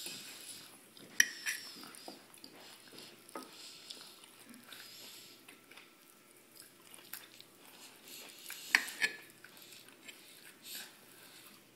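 Fork clinking and scraping on a china dinner plate: a few sharp separate clicks, with a small cluster about nine seconds in, over quiet room tone.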